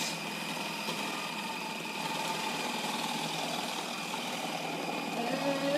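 Electric food processor motor running steadily with its shredding disc, making a constant whine while cabbage is shredded; it gets a little louder about two seconds in.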